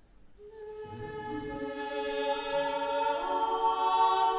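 Background music of held, choir-like voices. Notes enter one after another from about half a second in, and the chord swells steadily louder.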